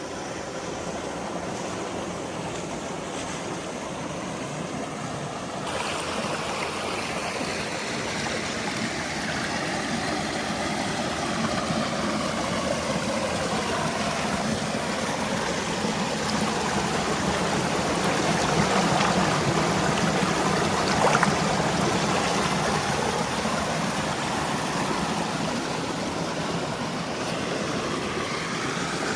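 Creek water rushing: a steady noise of flowing water that turns brighter about six seconds in and grows louder toward the middle.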